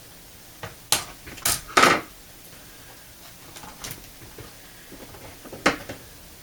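Plastic clips of a laptop's bottom access cover snapping and clicking as it is pried loose: three sharp snaps close together about a second in, the third the loudest, then one more near the end.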